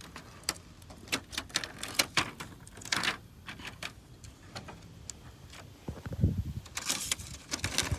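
Irregular crackling and clicking of a thin papery sheet being peeled from the edge of a dismantled TV's inner layers.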